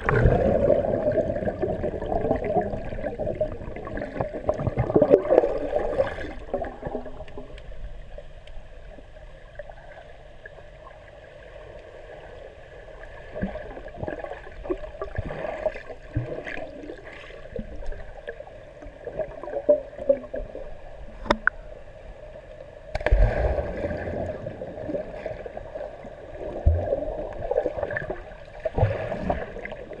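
Water heard from below the surface of a swimming pool: muffled splashing and bubbling from swimmers kicking and diving close by. It is busiest in the first six seconds and again in the last seven, quieter in between, with one sharp click about two-thirds of the way through.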